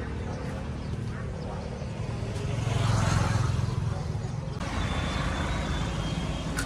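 A steady low engine hum, louder about three seconds in, which changes abruptly about four and a half seconds in.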